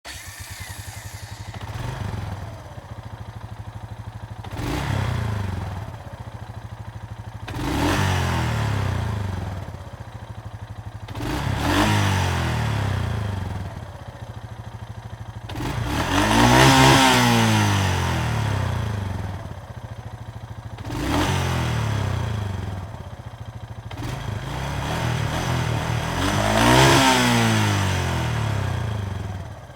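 ATV engine idling, blipped up to a rev about seven times, each rev rising and falling back to idle a few seconds apart. The revs are strongest in the second half.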